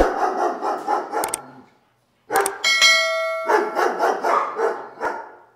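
A pack of hounds baying and barking all at once, in two stretches with a short break about two seconds in. A bell-like chime rings for about a second near the middle and is the loudest sound.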